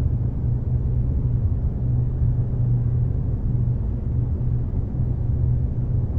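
A steady low rumble with a constant deep hum under it, unchanging throughout.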